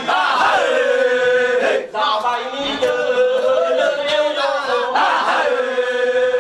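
A group of men chanting together without instruments in a traditional Nias song, in phrases of long held notes. There is a brief break just before two seconds in, and a fresh phrase rises near the end.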